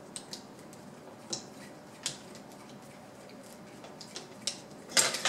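Light plastic clicks and ticks from unscrewing and removing the threaded ring on a solenoid, coming as a handful of irregular ticks, with louder single clicks a little over a second and about two seconds in, and a louder rustle of handling near the end.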